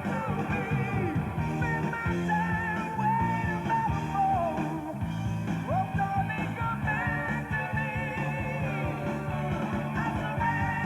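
Background rock music with guitar and singing.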